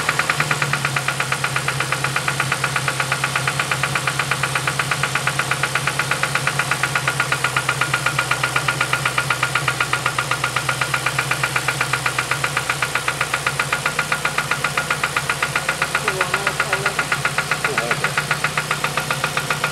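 2007 Ford Focus ZX4 ST's 2.3-litre four-cylinder engine idling with a steady, fast, rhythmic knock. The owner suspects rod knock from having run the engine with no oil.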